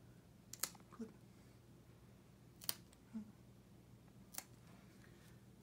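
Pet nail clippers snipping a cat's front claws: three short, sharp clicks, roughly two seconds apart.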